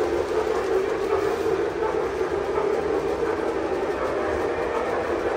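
Lionel O-gauge model train rolling along its track, a steady even rumble of wheels and motor.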